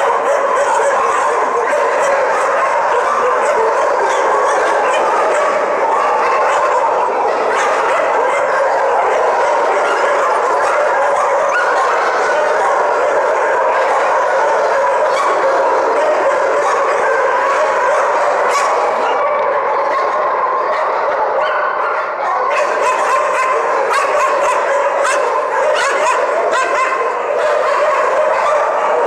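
A continuous din of many kennelled dogs barking and yelping at once, their calls overlapping without a break.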